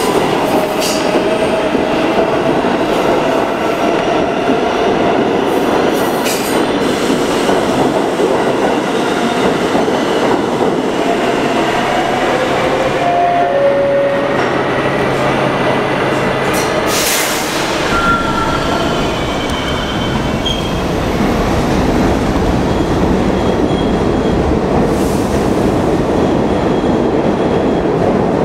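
Mixed R160A and R143 NYC subway train accelerating out of the station and receding into the tunnel: propulsion inverters whining in several tones over loud wheel and rail noise, with a brief wheel squeal about two-thirds of the way through.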